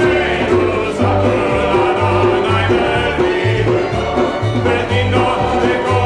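A group of voices singing a Hebrew psalm melody together, accompanied by acoustic guitar and double bass, with the bass moving through low notes about twice a second.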